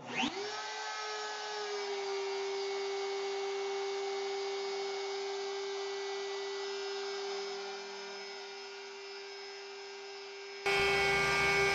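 The X-Carve CNC's DeWalt trim-router spindle switching on. Its whine rises quickly in pitch, then settles into a steady high whine. Near the end the sound jumps abruptly to a louder, fuller recording of the router running.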